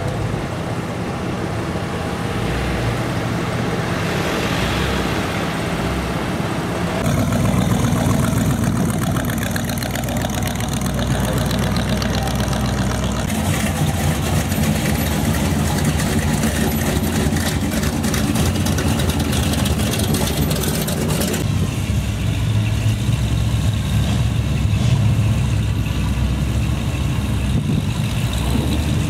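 Hot rod and muscle car engines running at idle and driving past, with a heavy low rumble that changes abruptly a few times.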